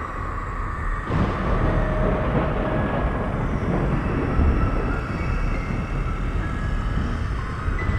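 Thunder rumbling, swelling about a second in and slowly rolling away, over a steady eerie synth drone with long held high notes.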